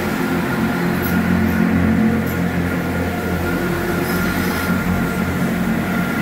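Diesel engines of a GWR Class 165/166 diesel multiple unit running as the train moves along the platform: a steady low drone with a faint steady whine above it.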